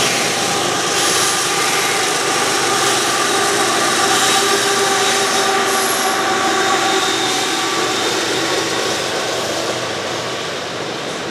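Double-stacked container cars of a long freight train rolling steadily across a steel girder bridge: continuous wheel and rail rumble with a steady whine running through it.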